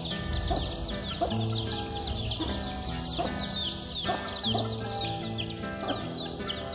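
A brood of young chicks peeping continuously: many short, high, falling peeps overlapping several times a second. Background music with held notes plays underneath.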